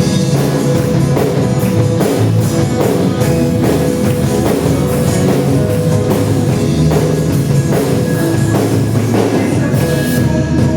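Band music with drum kit and guitar: an instrumental passage of a worship song, with held notes over a steady drum beat and no singing.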